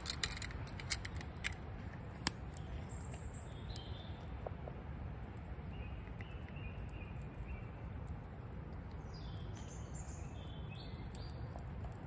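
Steady low wind rumble outdoors, with a few light metal clinks from a camp cooking pot and its lid near the start and faint bird chirps scattered through the middle.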